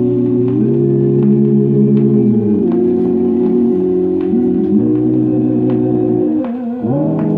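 Organ playing slow, held chords that change every second or two in a gospel recording, with faint short ticks over the music.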